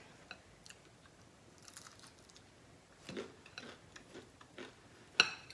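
A person chewing a mouthful of food close to the microphone, with faint wet mouth clicks. A sharp click comes near the end.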